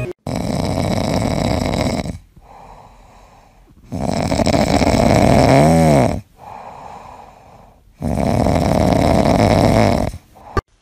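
A sleeping ginger cat snoring: three long snores about four seconds apart, with quieter breaths between them, the middle snore ending in a short whistle.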